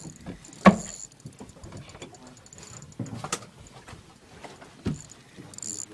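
A few sharp knocks and bumps, the loudest a bit under a second in, over rustling handling noise and faint quick clicking, while an angler fights a fish on rod and reel.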